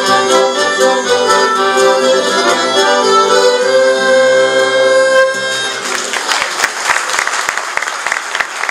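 Accordion playing the last bars of a polka and ending on a long held chord about five seconds in, followed by audience applause.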